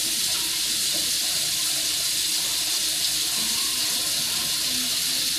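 Bathroom sink faucet left running, a steady, even rush of water into the basin.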